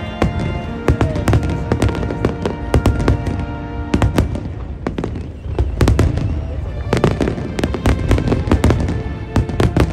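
Aerial fireworks shells bursting in a dense barrage, many bangs in quick succession throughout.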